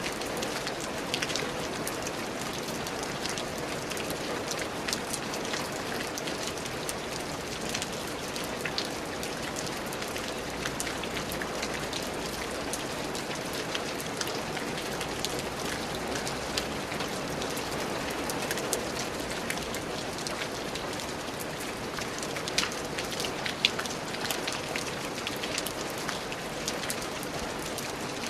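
Steady rain falling on a surface, an even hiss with many individual drops ticking through it and a few louder drop hits near the end.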